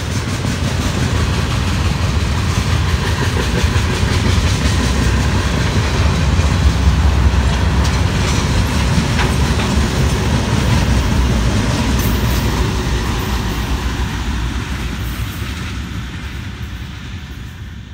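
BNSF freight train passing: the rail cars roll by, and then its diesel locomotives go past with a deep, heavy rumble. The sound dies away near the end as the train moves off.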